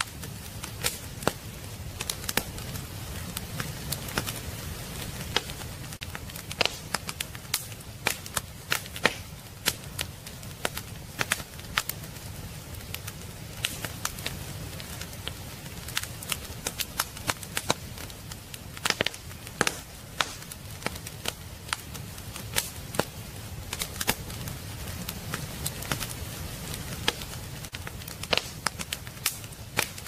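Wood fire in a fireplace crackling, with irregular sharp pops and snaps over a low, steady rumble of the flames.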